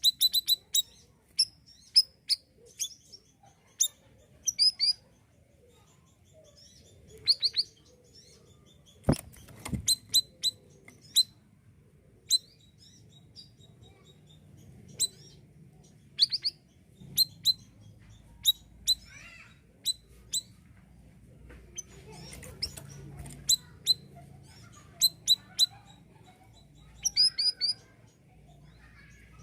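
Male siri-siri bird calling busily: short, sharp, high chirps in quick clusters of two to five, with short pauses between. A single sharp knock about nine seconds in.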